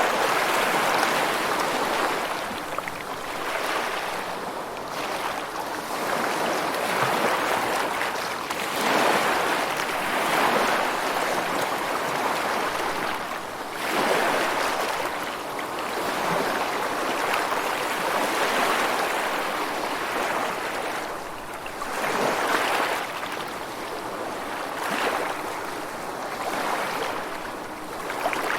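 Rushing water, an even hiss that swells and fades every few seconds.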